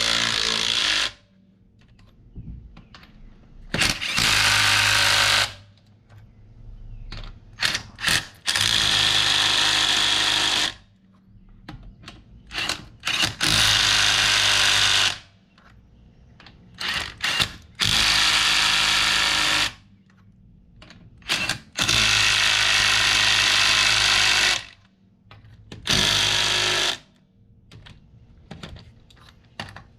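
Impact gun hammering lug nuts onto a truck wheel in a series of runs, each lasting one to two and a half seconds, with short trigger blips in between.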